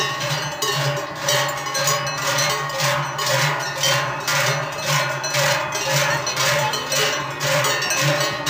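A group of large Swiss cowbells (Treicheln) swung together by marchers, clanging and ringing in a steady swinging rhythm of about two strokes a second.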